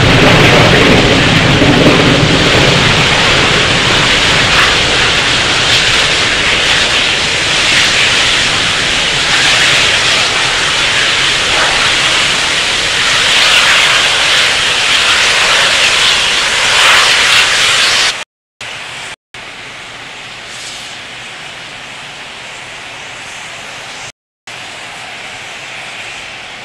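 Roar of an Atlas V rocket's RD-180 first-stage engine as the rocket climbs away after liftoff. The noise is loud and even, with a deep rumble in the first two seconds, then thinner and slowly fading. About 18 seconds in the sound cuts out briefly three times, and after the first cut only a much quieter steady rumble remains.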